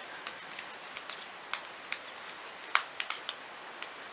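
Metal knitting needle tips clicking and tapping against each other as stitches are knitted: light, sharp clicks at an irregular pace, about two a second, over faint room hiss.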